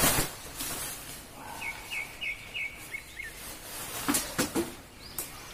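Eiger Recline pop-up beach shelter springing open as it is released, a sudden loud whoosh of its fabric, then rustling and flapping again about four seconds in. A short run of five high chirps comes about two seconds in.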